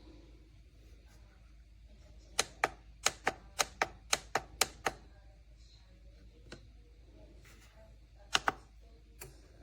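A quick run of about ten sharp clicks or taps of a small hard object, about four a second, then a pause and two more close together near the end.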